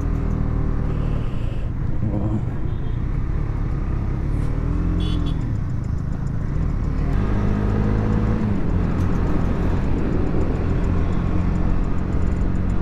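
KTM Duke motorcycle's single-cylinder engine running under way, its note rising and dropping a few times as the rider accelerates and changes gear, over the rush of wind and tyre noise on the helmet camera.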